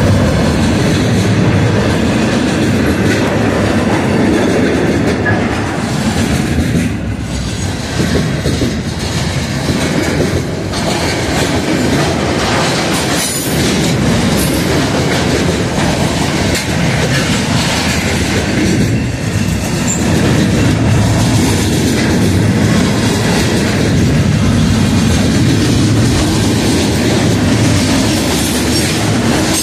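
Container wagons of a freight train rolling past at close range: a loud, steady rumble of steel wheels on the rails with a rhythmic clickety-clack of the wheelsets.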